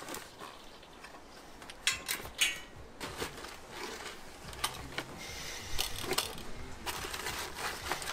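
Reinforced construction foil crinkling and thin steel wire scraping and ticking as the wire is pulled and twisted by hand around a foil-wrapped carcass, with a few sharper crackles about two seconds in.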